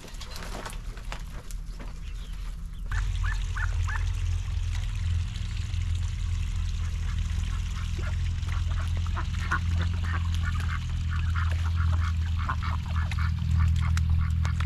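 A group of ducks quacking, many short calls in quick succession, over a steady low hum that comes in about three seconds in.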